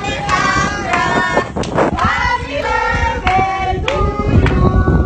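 Several voices singing and shouting loudly, with a few sharp hits among them.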